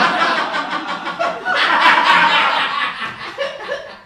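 Audience laughing, swelling again about one and a half seconds in and dying away near the end.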